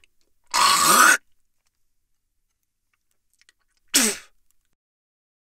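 A person spitting twice: a longer, throaty spit about half a second in, then a short, sharp spit about four seconds in.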